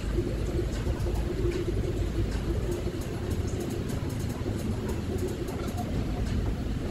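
Steady low rumble of a moving vehicle, with a faint constant hum over it.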